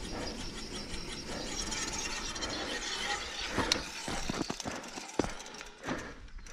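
Mountain bike coasting on a gravel road, its rear freehub ratcheting over the rolling noise of the tyres. After about three and a half seconds the bike slows to a stop, with a few sharp clicks and knocks.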